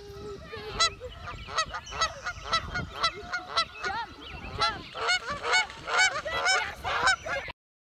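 Honking calls of a flock of birds, many short calls overlapping, a few each second. The sound cuts off suddenly near the end.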